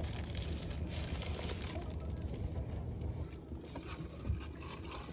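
Soft chewing and mouth clicks of someone eating a fried chicken sandwich, over a steady low hum.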